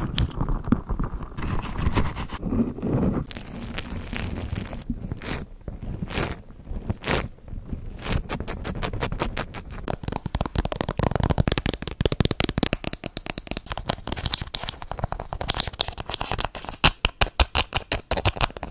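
A quick succession of close-microphone ASMR trigger sounds from small pink objects: squeezing a soft squishy toy, rubbing and scratching, and tapping on a plastic case. The tapping is rapid near the end.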